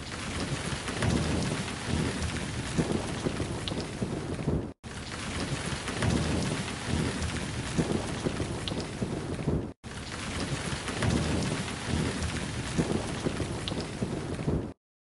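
Recorded rain with low rumbles of thunder, a steady downpour that repeats as a loop of about five seconds, dropping out briefly twice and cutting off just before the end.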